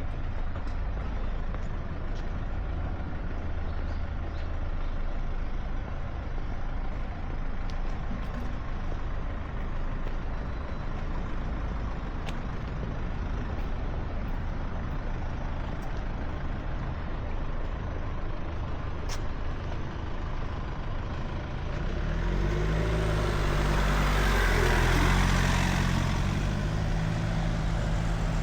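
Road traffic rumbling steadily. From about 22 seconds in, a heavy vehicle passes close by, louder, its engine note rising over a hiss.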